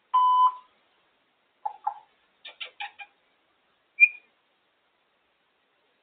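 African grey parrot calling: a held, beep-like whistle at the start, a few short chirps and clicks over the next couple of seconds, then one brief, sharp high whistle about four seconds in, the loudest of them.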